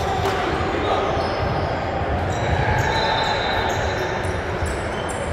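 Echoing gym hall ambience: basketballs bouncing on a hardwood court now and then, with short high squeaks scattered through.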